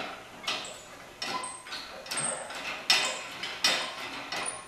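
Hydraulic engine hoist being hand-pumped: a sharp metallic clack at each stroke of the pump handle, about six strokes evenly spaced, with brief high squeaks between some of them.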